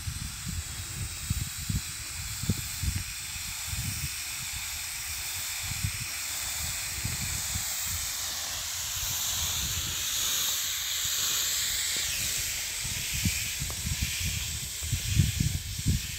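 Tractor-mounted sprayer nozzles sending out a steady high-pressure hiss, whose pitch shifts a little partway through. Wind gusts buffet the microphone, strongest near the end.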